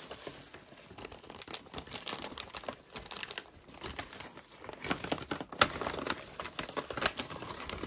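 Plastic packaging, a zip-top bag and bubble wrap, crinkling and rustling as it is handled, with many small irregular crackles.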